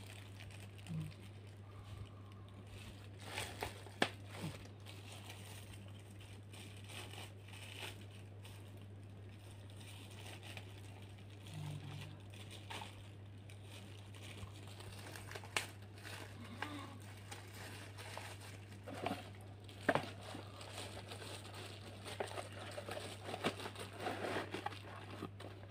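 Clear plastic packaging crinkling and rustling as it is handled, with a few sharp clicks and knocks, over a steady low hum.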